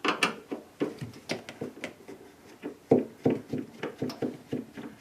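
Irregular light clicks and taps of a Phillips screwdriver and screws being worked against the refrigerator's plastic freezer panel, a dozen or so small knocks spread unevenly.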